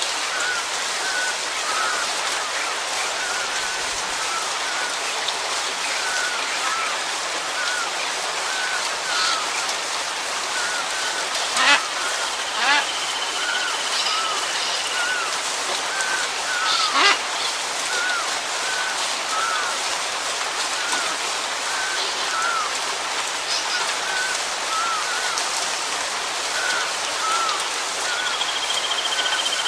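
Steady rain falling, with an animal's short chirping calls repeating about once a second and, now and then, a longer drawn-out high note. A few sharp knocks, like heavy drips, stand out around the middle.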